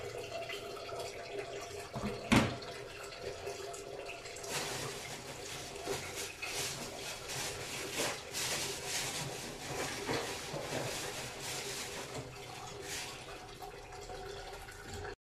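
Kitchen water running, with a sharp knock about two seconds in and a run of light clattering through the middle; the sound stops abruptly near the end.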